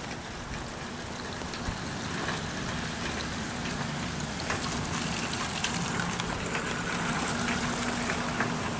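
Light rain falling, a steady hiss with scattered small drop ticks. A faint low hum comes in about halfway through.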